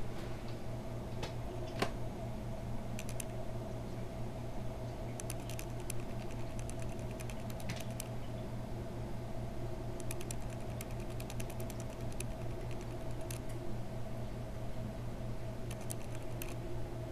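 Steady low hum of an aquarium air pump, with irregular bursts of fine, light clicking every few seconds.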